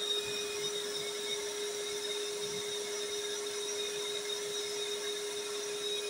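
Kärcher NT 48/1 wet and dry vacuum cleaner running steadily: a constant motor whine over a hiss of rushing air.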